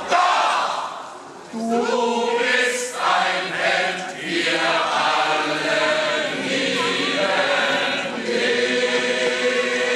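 A crowd singing a song together in chorus, a birthday serenade. The singing drops away briefly about a second in, then carries on steadily.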